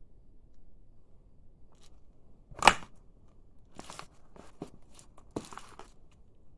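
A sneaker stomps down on a plastic baby doll on a hard floor: one loud hit about two and a half seconds in, then a run of shorter crackles and creaks as the shoe presses and shifts on the doll.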